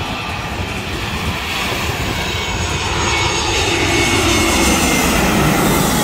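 Jet engines of a twin-engine airliner on final approach with landing gear down, passing low overhead. The roar grows louder toward the end while its pitch falls as the plane goes over.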